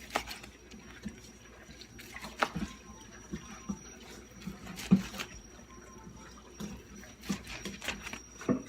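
Knife knocking on a cutting board while slicing tri-tip steak, a sharp knock about every two and a half seconds.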